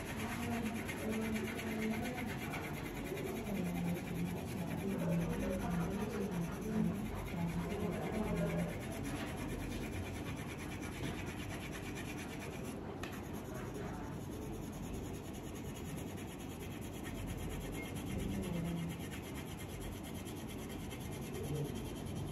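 Crayon rubbing and scratching steadily across paper as an area is coloured in. A soft low tune runs under it through the first third and again briefly later.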